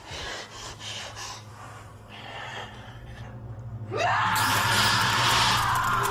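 A person gasping and breathing hard in short, ragged breaths. About four seconds in, a loud high whine cuts in suddenly, rising quickly in pitch and then holding steady, over a low steady hum.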